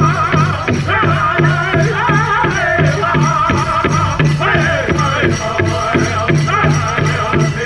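Powwow drum group singing a chicken dance song: a big drum struck in a fast, even beat under high, wavering voices, with the rattle of dancers' bells.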